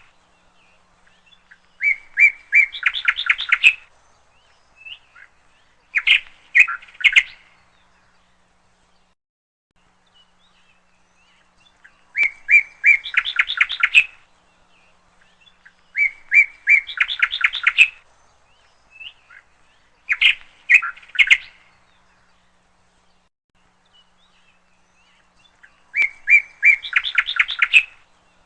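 A songbird singing short phrases of a few notes running into a quick, rapid trill, about six songs with pauses of a few seconds between them.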